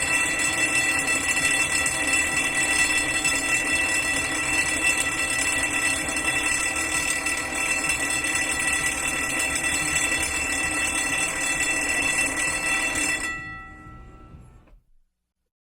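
Fire alarm bell ringing continuously, then stopping about thirteen seconds in, its ring dying away over a second or so into silence.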